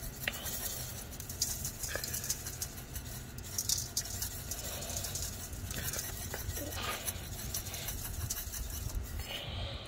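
A seasoning shaker shaken over a chicken, giving a few short grainy rattles, over a steady low rumble.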